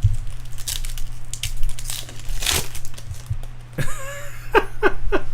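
Crinkling and tearing of a trading-card pack wrapper being handled and opened, in irregular crackles, with a few short vocal sounds near the end.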